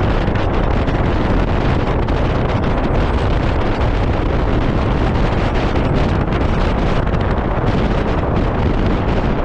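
Loud, steady wind noise buffeting the microphone on a moving motorcycle, with the engine and road drowned beneath it.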